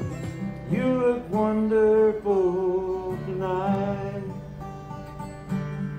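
Background music: acoustic guitar with a wavering melody line over steady bass notes.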